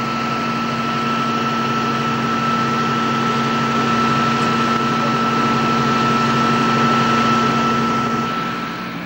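Jet aircraft turbine running steadily: a constant high whine over a low hum and a rushing noise, easing off slightly near the end.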